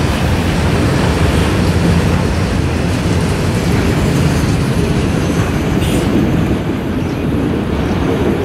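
Freight train of autorack cars rolling past, steel wheels running on the rails in a steady rumble that eases a little once the last car has gone by, about two-thirds of the way through.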